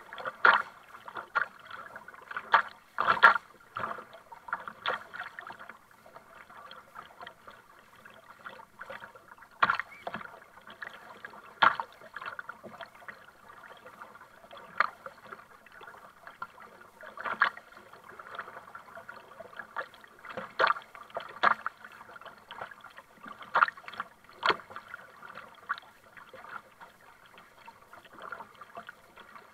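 Double-bladed kayak paddle strokes dipping into the water, with splashes against the kayak's bow over a steady lapping of water; sharp splashes come irregularly, every second or few.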